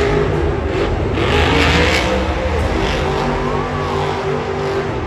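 Monster truck's supercharged V8 engine revving as the truck drives and turns on the dirt, its pitch rising and falling.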